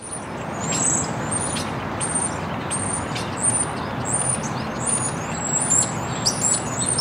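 Birds chirping, many short high chirps, over a steady background of city noise, as heard on Earth without Martian muffling.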